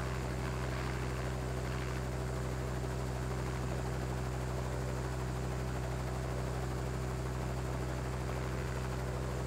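Helicopter running steadily: an even, unchanging low drone made of several steady tones.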